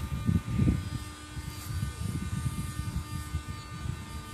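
Steady electric buzz of the giant-scale RC airplane's servos, powered on with the throttle set wide open, over low rumbling handling or wind noise in the first second.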